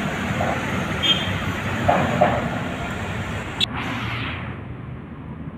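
Steady city road traffic, engines and tyres of passing vehicles. A sharp click about three and a half seconds in, after which the sound turns duller and fades a little.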